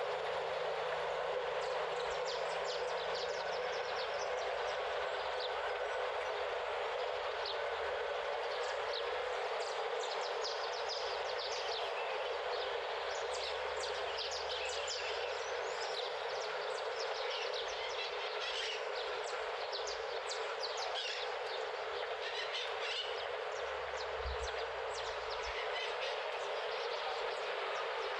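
Outdoor ambience: a steady rush of noise with many short, high bird chirps scattered through it.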